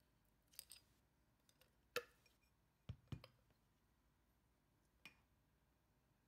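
Faint handling noises of a glass beer bottle and a plastic LED bulb on a cutting mat: a few light clicks and knocks, including two dull knocks close together about three seconds in.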